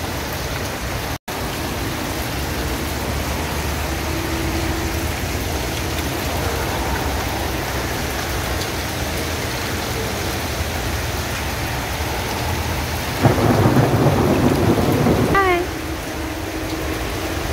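Steady rain falling on a paved driveway and porch roof, an even hiss, with a louder rumbling swell for about two seconds near the end.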